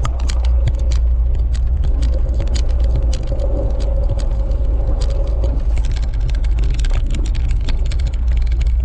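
Jeep TJ driving slowly over a rough dirt trail, heard from inside the cabin: a steady low engine and road drone with many small clicks and rattles from the bumpy track.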